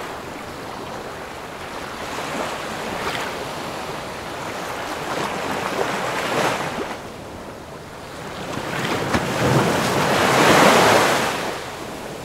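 Ocean surf breaking and washing up a sandy beach, rising and falling in several swells, the biggest near the end.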